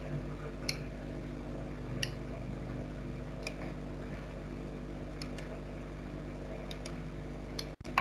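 Low steady electrical hum from the recording setup, with a few faint clicks scattered through it and a brief cut-out in the sound near the end.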